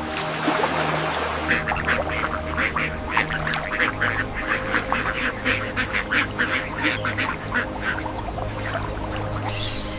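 Rapid series of short, harsh animal calls, about four a second, starting about a second and a half in and stopping near the end, over background music with steady held tones.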